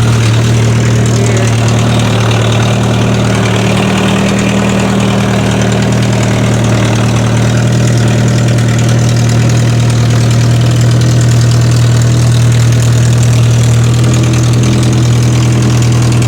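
1973 Triumph Spitfire 1500's rebuilt 1493 cc four-cylinder engine idling steadily, warm after starting up readily.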